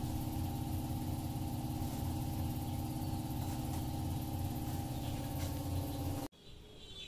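Kitten purring while being stroked under the chin: a steady, rapidly pulsing low rumble that cuts off abruptly near the end.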